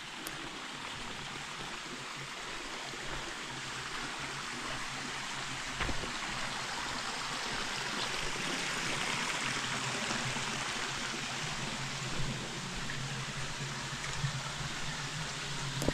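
Steady rush of water flowing in a forest stream, with a couple of soft knocks.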